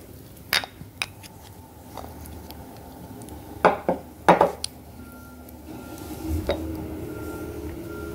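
A few sharp clinks of a utensil against a dish, then two louder short scrapes about halfway through. A steady hum sets in after that.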